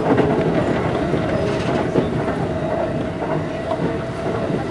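E531-series electric train running at speed, heard from inside just behind the driver's cab: steady running noise with a constant whine, wheels clattering over the rails and a sharp click about two seconds in.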